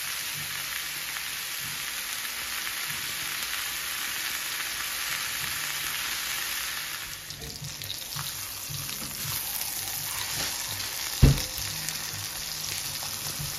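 Seasoned steaks sizzling in hot oil in a cast-iron skillet on high heat, a steady hiss that eases a little about halfway through. One sharp knock sounds near the end.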